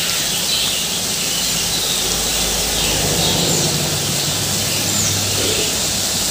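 Discs of wheat-flour thattu vadai dough deep-frying in a kadai of hot oil: a steady sizzle and bubbling.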